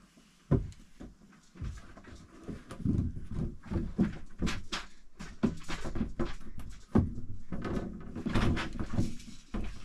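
Clunks, taps and scraping from hands working at the frame of an open overhead deck hatch. A sharp knock comes about half a second in and another about seven seconds in, with a busy run of knocks and rubbing between them.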